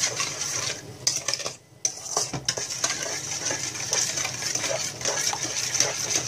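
A metal spoon stirring and scraping around a stainless steel bowl, with small clinks against the side, grinding through sugar that is still dissolving in hot water and sour cream. The stirring breaks off briefly about a second and a half in, then goes on steadily.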